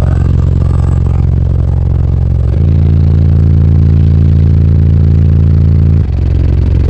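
Car audio subwoofers playing very loud, sustained bass notes heard inside the vehicle's cabin. The held note drops deeper and grows louder about two and a half seconds in, then returns to the earlier note about six seconds in.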